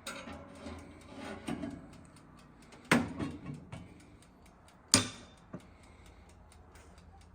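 The oven's mechanical timer ticking steadily, about four ticks a second, under handling noise, with two sharp knocks about three and five seconds in, the second the loudest.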